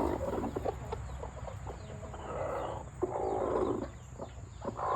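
Hens clucking in short, soft calls, with scattered small taps and clicks.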